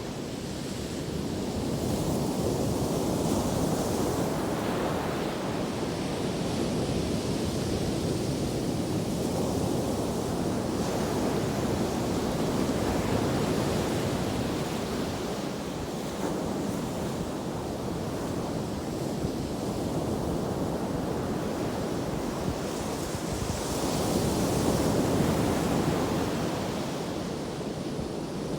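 Atlantic Ocean surf: waves breaking and washing up the beach in a continuous rush that swells twice, a few seconds in and again near the end.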